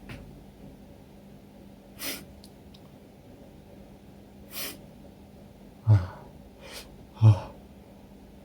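A person sneezing twice, the sneezes about a second and a half apart in the second half, after two sharp noisy breaths in. The sneezing is brought on by chhinkni, a herbal sneezing powder taken up the nose.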